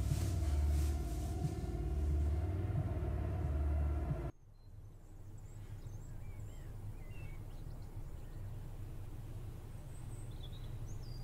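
A loud low rumble that pulses slowly, over a steady hum, cuts off abruptly about four seconds in. Then a faint low hum remains, with a few scattered small-bird chirps.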